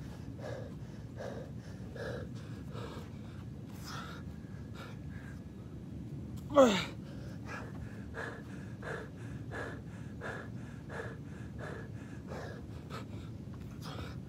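A man breathing hard and fast, a heavy breath about every 0.7 seconds, out of breath from hard exertion. About halfway through he lets out one loud groan that falls in pitch.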